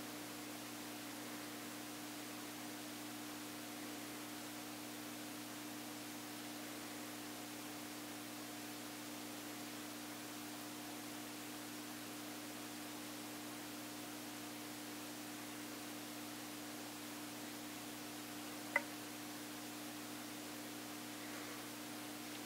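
Steady electrical hum with a background hiss, and one short click near the end.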